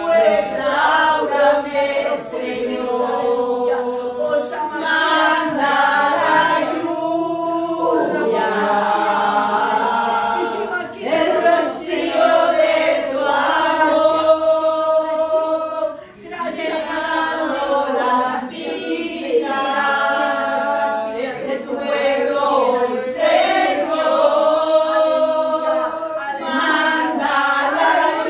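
A small congregation singing a Spanish-language worship song together, mostly women's voices, with long held notes.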